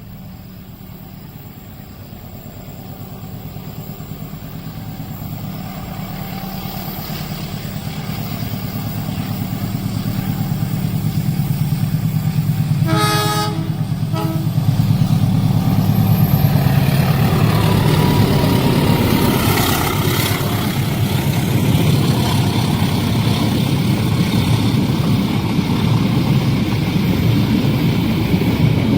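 Diesel train approaching, its low engine rumble growing steadily louder, then a horn blast about halfway through with a short second toot just after. The train then passes close by in a loud, steady rumble of wheels and cars on the rails.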